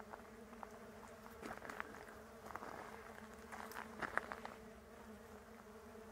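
Faint, steady hum of many bees foraging among tree blossoms, with a few faint clicks, the loudest about four seconds in.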